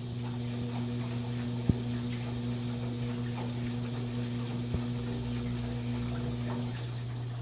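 KMC washing machine running with water inside: a steady motor hum, a higher hum that cuts off about a second before the end, and two short knocks.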